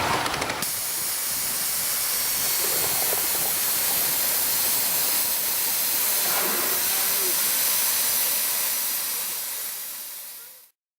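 Steam hissing steadily from a 5-inch gauge live steam model of a Hunslet 2-8-4 pannier tank locomotive. It comes on abruptly about half a second in, fades near the end and cuts off.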